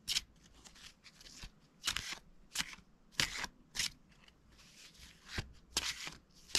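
A deck of large oracle cards being shuffled by hand: about ten short, dry card-on-card slides and flicks at an irregular pace, with a pause a little past the middle.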